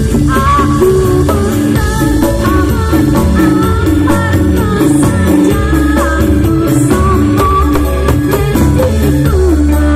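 Live keyboard band music amplified through a PA, with a woman singing a wavering melody over a steady bass line and beat.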